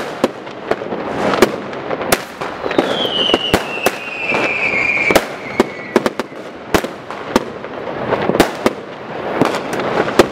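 New Year's Eve fireworks: a rapid, irregular string of firecracker and shell bangs, some close and sharp, others distant. Early on, a firework's whistle slides down in pitch for about three seconds.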